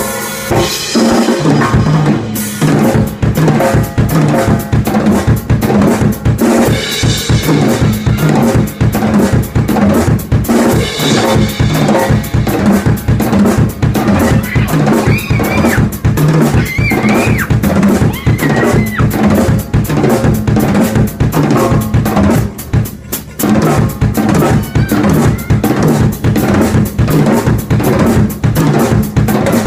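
Drum kit played in a fast, steady groove, with dense kick and snare hits. The playing briefly thins out about two-thirds of the way through, then picks up again. A few high, bending melodic notes sound over the beat around the middle.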